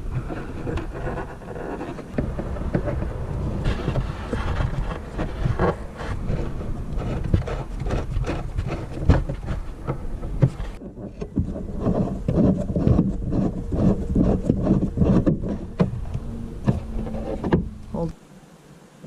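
Wind buffeting the microphone in a low rumble, with scattered small clicks and knocks from handling the licence plate light housing as it is lined up and refitted. The noise drops away abruptly near the end.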